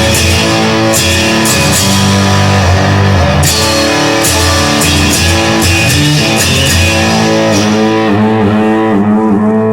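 Instrumental rock music: guitar with a drum kit keeping time. The drums and cymbals drop out about eight seconds in, leaving the guitar.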